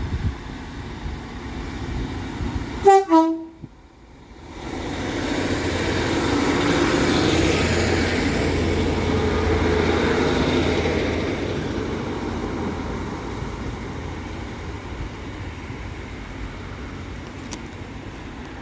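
Class 150 diesel multiple unit sounding a short two-note horn about three seconds in, then its diesel engines and wheels rumbling louder as it moves, peaking and slowly fading away.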